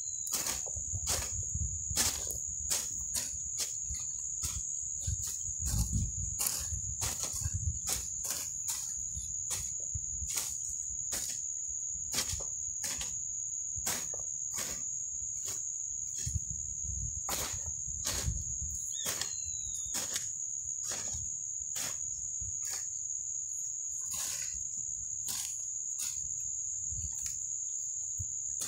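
Hoe blades chopping into dry soil, sharp irregular strikes about one or two a second, over a steady high-pitched insect drone, with a couple of brief bird chirps.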